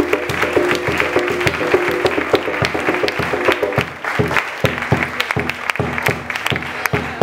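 Background music track with plucked-string melody and a beat, with applause mixed in.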